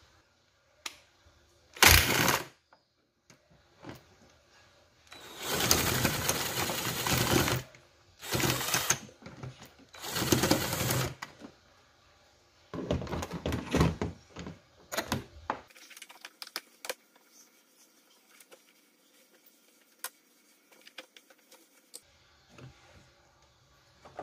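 Plastic air filter box and intake duct of a 2015 Nissan Sentra being worked loose and pulled out of the engine bay. There are several bursts of rattling and scraping, the longest about two seconds, then lighter clicks and knocks near the end.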